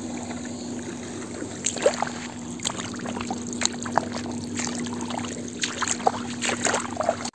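Irrigation water pump motor running with a steady hum, while water spurts from leaks in its discharge pipe and splashes into a flooded field, with scattered sharp splashes and drips.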